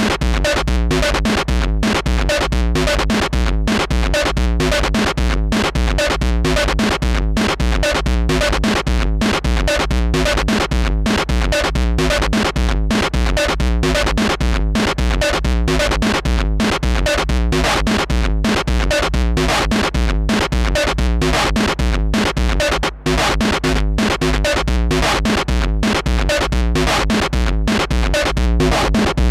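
Roland TR-6S drum machine beat loop played through an analogue distortion and overdrive pedal: a dense, steadily repeating pattern of distorted hits over a heavy bass. The sound drops out for an instant about two-thirds of the way through.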